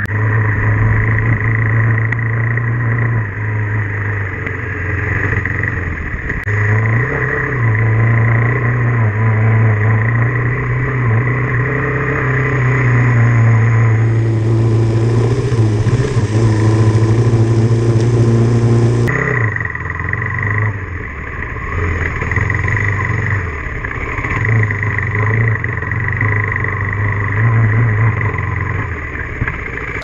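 Off-road motorcycle engine running under way on a dirt trail, with tyre and wind noise; the engine note eases off a few times as the throttle is rolled back and comes on again. For several seconds in the middle a louder rushing hiss joins it.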